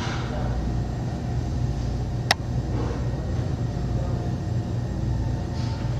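Steady low hum and rumble, with a single sharp click a little over two seconds in.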